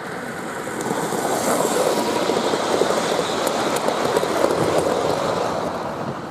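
Gauge 1 model train's wheels running on the rails as it passes close by: a rumble that grows louder over the first two seconds, holds, then fades near the end, with a few light clicks.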